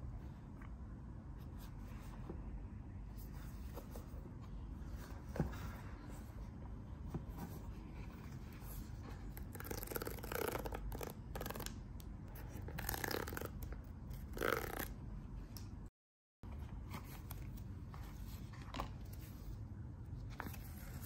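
Paper tear strip being pulled off a cardboard earbuds box: a few short tearing rips in the middle, amid quiet rustling and handling of the cardboard.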